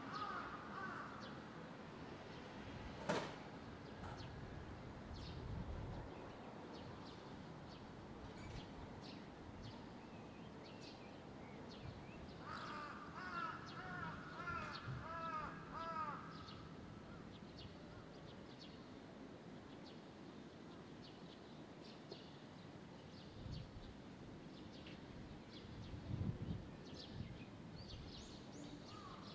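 Barn swallow fledglings on a wire giving faint, high twittering chirps, scattered throughout. About halfway through another bird gives a rapid run of chirping notes lasting a few seconds, and a single sharp click sounds about three seconds in.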